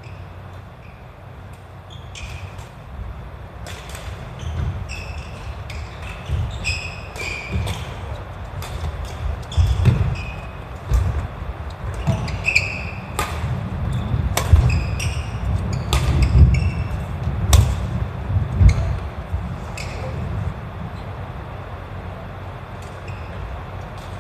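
Badminton singles rally: sharp racket strikes on the shuttlecock about once a second or two, with shoes squeaking and feet thudding on a wooden sports-hall floor. The play is busiest about halfway through and dies away near the end.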